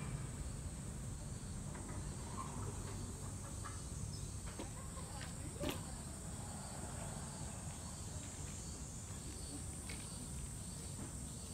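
Summer cicadas droning as a steady high-pitched hiss, over a low rumble, with a few faint clicks and one sharper tick about halfway through.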